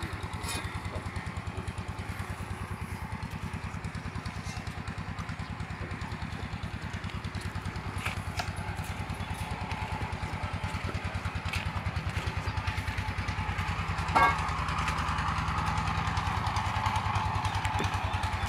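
An engine running steadily with an even, rapid thudding beat, as at idle. There is a brief knock about fourteen seconds in.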